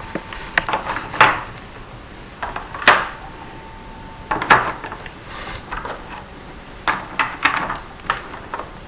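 Small geometric pieces of a Minnesota Spatial Relations Test board clicking and clattering as they are picked up and set into their slots in the board and its metal-framed tray. The knocks come in irregular clusters, the sharpest about a second in and again near three seconds.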